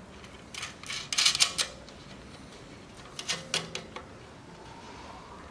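Sharp clicks and rattles of a plastic LED trailer light being handled against its steel mounting bracket as it is fitted by hand. They come in two short flurries, the first about a second in and the second about three seconds in.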